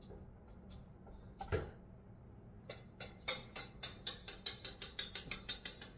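Metal wire whisk of a stand mixer rattling against its stainless steel bowl in quick, even clicks, about four or five a second, starting about halfway through, after a single knock a second and a half in.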